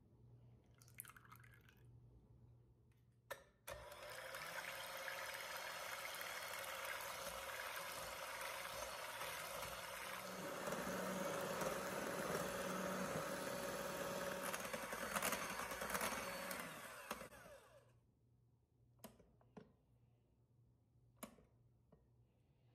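Electric hand mixer whipping cold whipping cream in a glass bowl: it switches on about four seconds in, runs steadily, gets louder about ten seconds in, and stops near eighteen seconds as the cream reaches soft peaks. A few light clicks follow.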